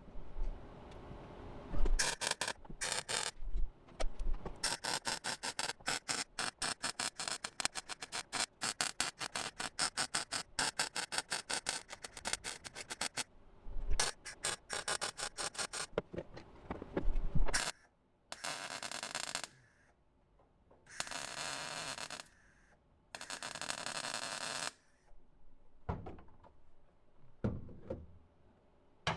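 MIG welder welding thin sheet-metal floor patch, run low on heat with a raised wire speed to bridge small gaps. It makes a rapid crackle that runs with short breaks for the first half, then comes in three separate bursts of about a second and a half each.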